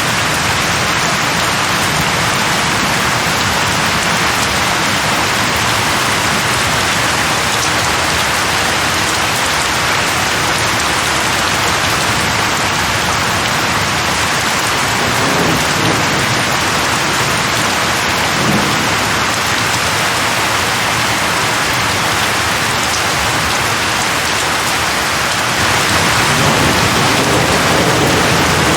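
Steady heavy rain, an even dense hiss. Low rumbles swell briefly about halfway through, and again for a few seconds near the end.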